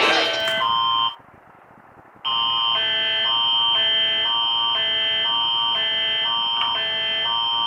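Canadian emergency alert attention signal opening an Alberta Emergency Alert: a harsh electronic alarm made of a steady high tone with lower tones switching back and forth about twice a second. It cuts out briefly about a second in, then restarts and keeps going.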